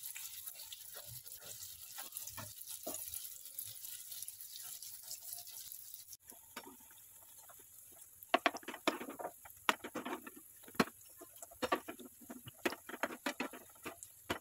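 Bread triangles frying in hot oil, sizzling with a steady hiss. About six seconds in the hiss drops, and from about eight seconds a steel slotted spoon clicks and scrapes against the pan in quick irregular strokes as the pieces are turned.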